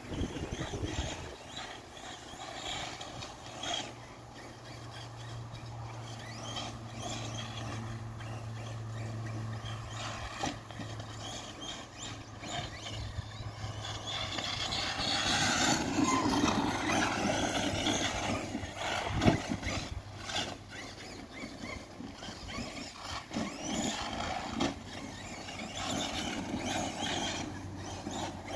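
Large electric RC cars running on a dirt and grass track: a whining motor and drivetrain, with tyres on loose dirt. The sound swells through the middle, and there is one sharp knock about two-thirds of the way through.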